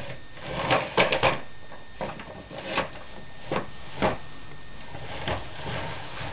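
Toy truck and toy animals being handled: irregular knocks and clatters, with a quick cluster of them about a second in.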